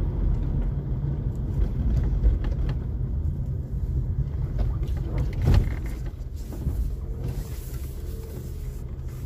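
Car road noise heard inside the cabin: a steady low rumble of engine and tyres that eases as the car slows, with a single thump about halfway through.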